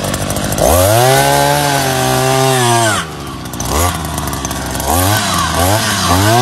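Hand-held petrol earth auger's small two-stroke engine revving as the auger bit bores into the soil. It climbs to high revs under the trigger and holds there for about two seconds, drops back, then revs up and down in several quick bursts near the end.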